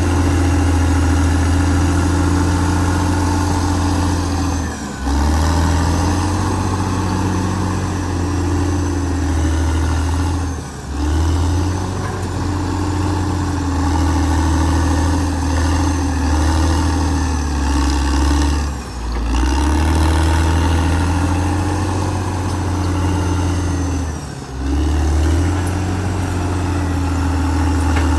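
Caterpillar D6R XL bulldozer's diesel engine running steadily with a deep, strong drone, dipping briefly four times.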